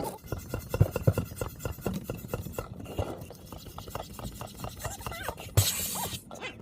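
Sped-up audio of an inflatable bouncer being blown up: a fast, jumbled run of rasping and rubbing noises with squeaky fragments of sped-up voices, and a short loud hiss near the end.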